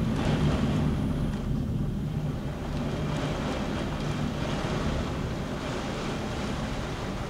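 Heavy rain and gusty wind of a thunderstorm, a steady roar, with the low rumble of thunder dying away over the first second or two.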